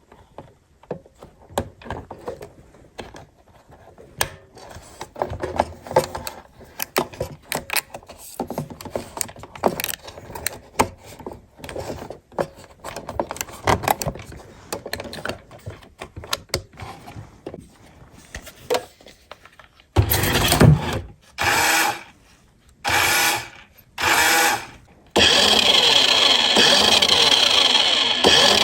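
Clicking and rubbing of plastic parts being handled. From about twenty seconds in, a toy RC car's small electric motor whirs in four short bursts, then runs continuously.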